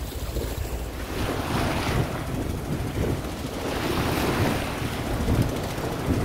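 Strong wind buffeting the microphone over choppy sea, with waves washing and slapping around moored boats; the wash swells up a couple of times.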